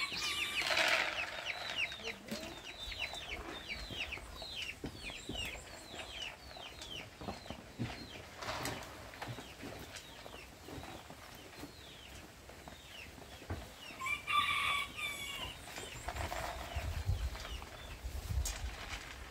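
Chickens calling: a quick run of short, falling, high chirps, about three a second, then a louder squawk about fourteen seconds in. A low rumble comes near the end.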